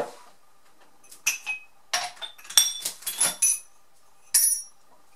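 Glass kitchen drinking glasses clinking against one another as they are picked up and handled: a string of sharp clinks, each with a brief high ring.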